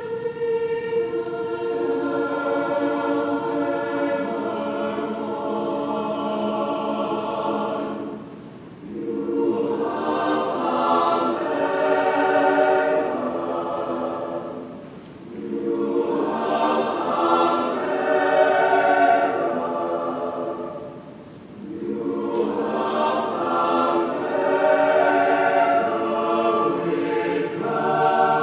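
Mixed choir singing slow, sustained chords on the words "Hail, favored one… you have found favor with God," in four long phrases. Each phrase swells and fades, with a brief break before the next.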